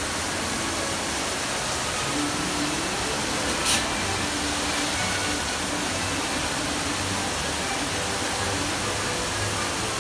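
Fountain water falling and splashing in a steady rush, with a brief sharp hiss about four seconds in.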